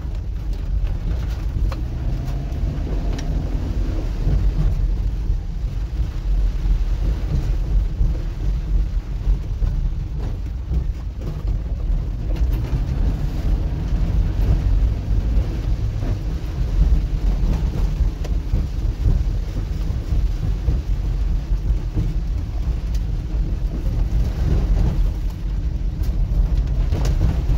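Steady noise of a car driving through heavy rain, heard from inside the cabin: rain falling on the car and tyres on the wet road over a continuous low rumble.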